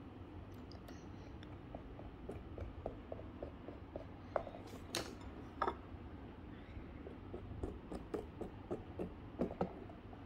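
Faint, irregular small clicks and taps of a toddler handling plastic toys and slime on a tabletop, a few louder knocks in the middle.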